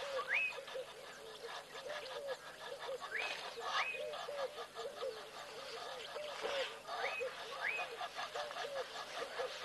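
Wild animals calling: a steady run of short, low, arched notes, a few each second, and about every three and a half seconds a pair of whistles that rise in pitch.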